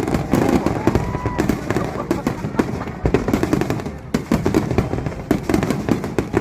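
Fireworks bursting in rapid succession: a dense, continuous run of bangs and crackles with no pause.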